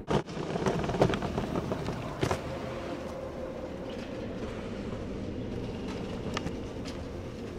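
Airport baggage X-ray scanner's conveyor belt running with a steady mechanical hum, with a few sharp knocks and clatters: one right at the start, others about one and two seconds in, and one near the end.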